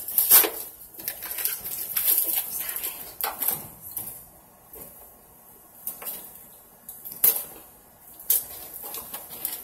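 Clear plastic wrapping crinkling and rustling in irregular bursts as hands pull at a tape-bound package, with a few sharper crackles.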